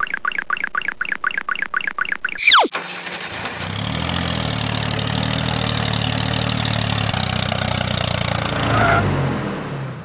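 A quick run of light chirping ticks ends in a falling whistle. Then a tractor engine starts up about three seconds in and runs steadily, swelling a little near the end before fading.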